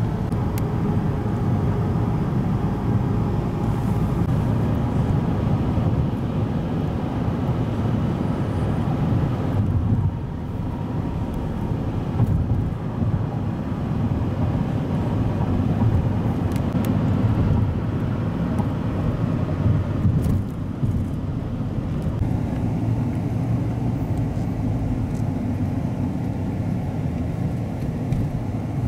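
Steady low vehicle rumble, dipping briefly about ten seconds in.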